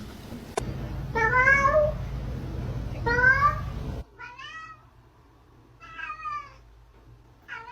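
Domestic cat meowing five times, each meow rising in pitch. The first two are loud, over a steady low hum that stops suddenly; three quieter meows follow.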